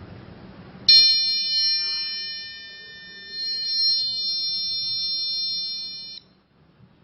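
The Arduino alarm clock's buzzer sounding its alarm: one steady, high electronic tone starting about a second in and lasting about five seconds, then cutting off suddenly.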